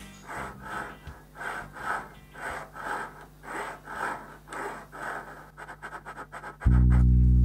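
A thin pointed steel blade scratching at the graduation marks on the painted rim of an aluminium lathe dial ring, in short strokes about two a second. A loud deep sound cuts in near the end.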